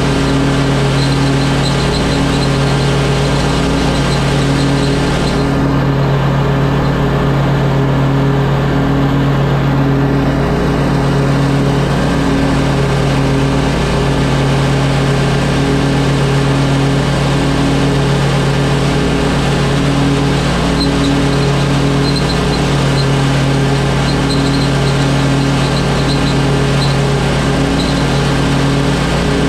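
Stand-on lawn mower's engine running steadily under load while its blades cut grass, heard close up from the operator's platform as an even, unbroken drone.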